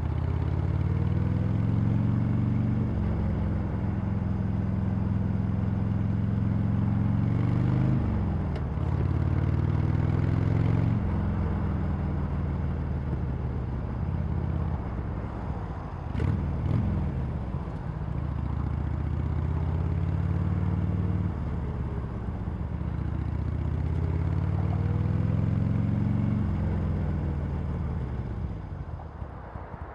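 Harley-Davidson Sportster Iron 883's V-twin engine through its stock exhaust while riding. The engine note climbs in pitch and drops back at each upshift, several times over. It falls away twice as the throttle is eased off, the second time near the end.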